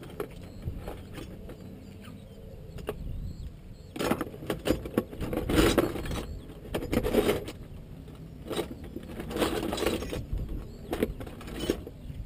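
Irregular clinks, clatters and rustles of hands and parts on a dirt bike being worked on, with the loudest bursts near the middle.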